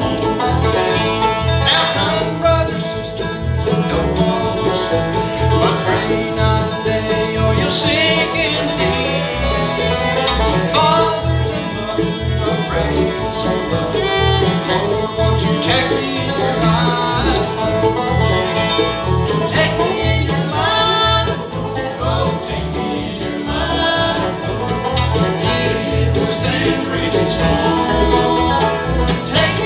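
Bluegrass band playing at a steady tempo: acoustic guitar, fiddle, mandolin, banjo and upright bass, with the bass plucking a regular beat underneath.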